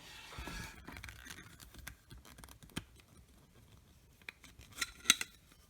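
Faint handling of a trading card and a plastic magnetic card holder: a soft rustle at first, then a few sharp plastic clicks near the end.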